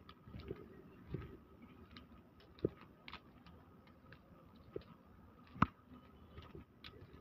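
Faint, irregular footsteps and small taps on a dusty concrete deck, with the sharpest click a little past the middle.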